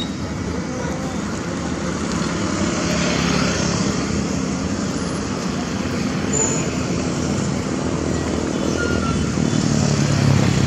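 Caterpillar 320D excavator's diesel engine running steadily while working, swelling louder about three seconds in and again near the end.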